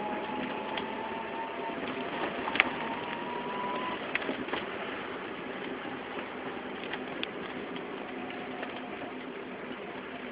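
Wheel hub turning with the abnormal noise under investigation: a steady rushing mechanical sound, with a faint whine over the first few seconds and scattered ticks, the sharpest about two and a half seconds in.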